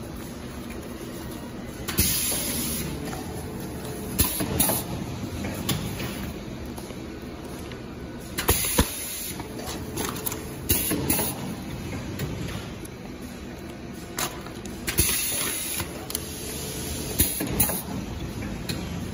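Clear PVC film crinkling and rustling in irregular bursts as welded bags and sheets are handled by hand, over a steady low hum.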